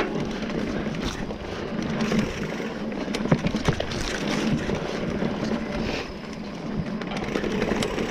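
Mountain bike rolling fast down a dirt singletrack: knobby tyres running over dirt and rock with the bike rattling, and sharp knocks over bumps, the strongest about three seconds in.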